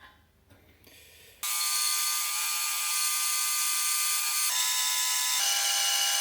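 A small high-speed power tool starts suddenly about a second and a half in and runs with a steady high whine. Its pitch shifts slightly twice near the end.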